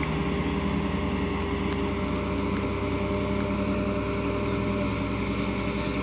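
A vehicle engine idling: a steady low rumble with a fast even pulse that does not change.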